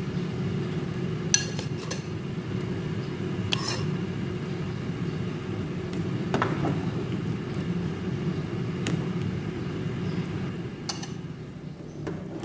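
Metal ladle stirring a large metal pot of boiling curry broth, clinking sharply against the pot about six times over a steady low rumble from the boil.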